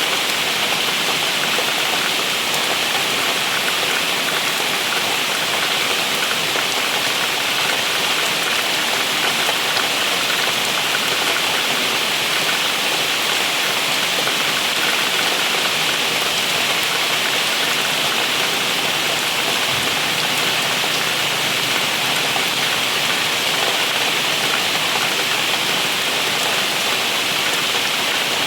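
Steady rain falling, an even hiss of many drops with no let-up or change.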